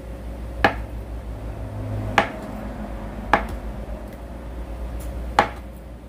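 Kitchen knife slicing through a block of tofu and knocking down onto a wooden cutting board, four sharp taps one to two seconds apart.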